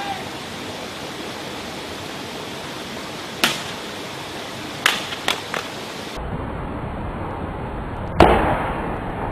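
A Fluke 28-II multimeter dropped more than 30 m onto concrete, landing with sharp clacks. There is one about three and a half seconds in and a quick cluster of three around five seconds, then one loud echoing crack near the end. A steady rushing noise runs underneath.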